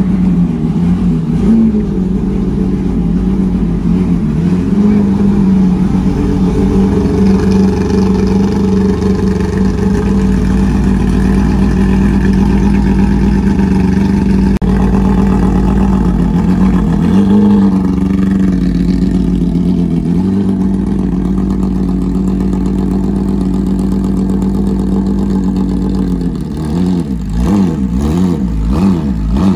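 Porsche 911 rally car's flat-six engine idling steadily. Near the end it goes into repeated light throttle blips, the pitch rising and falling, as the car is driven down off the transporter.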